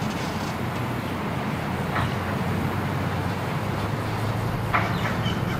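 Steady low engine rumble, with a few brief high chirps about two seconds in and again near the end.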